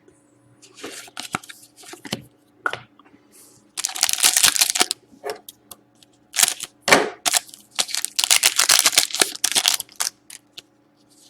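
Upper Deck Artifacts hockey card pack being torn open and its wrapper crinkled, with cards handled, in bursts of crackling rustle. The loudest stretches come about four seconds in and again from about eight to ten seconds in.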